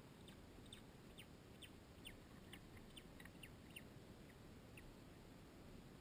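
Faint, high peeping of a secretary bird chick as it is fed, a run of short falling peeps about two or three a second that stops about five seconds in.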